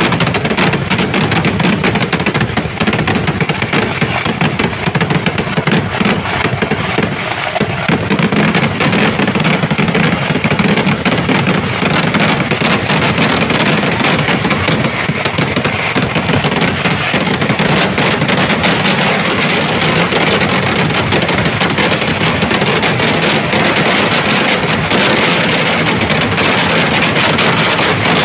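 Kerala temple-festival fireworks (vedikkettu): a dense, unbroken barrage of firecracker explosions so rapid that they blur into one continuous crackling din, without a pause.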